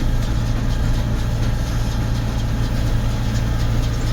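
Tractor engine running steadily, driving a baler through the PTO as crop feeds in, giving a loud, even, low drone.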